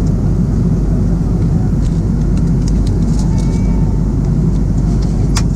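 Steady low drone inside an Airbus A330-200's economy cabin in flight: engine and airflow noise. A few faint clicks sit on top of it, with a sharper click near the end.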